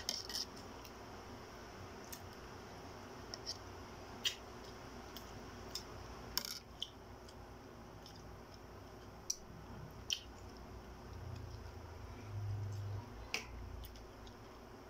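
Sporadic sharp clicks and light crackles of balut eggshells being cracked and peeled by hand at a table, with a faint low hum for a couple of seconds near the end.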